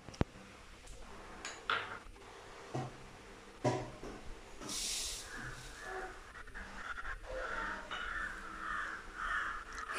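Sharp clicks and knocks of a plastic mixer-grinder jar and its lid being handled, the loudest click right at the start. Through the second half a crow caws repeatedly, about two calls a second.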